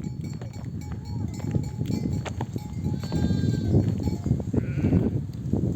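Sheep bleating, ewes calling for their lambs: one call about three seconds in and a higher, wavering call near five seconds, over a steady low rumble.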